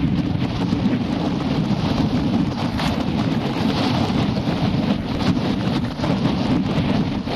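Wind buffeting a wheel-mounted camera's microphone at speed, with the steady rumble of a tyre on a gravel track and many small clicks of loose stones.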